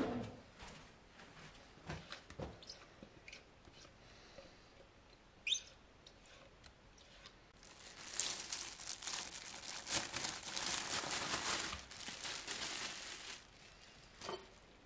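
Clear plastic bag crinkling and rustling for about five seconds, starting about halfway through, as ground meat is emptied from it into a glass dish. A few light clicks and knocks come before it.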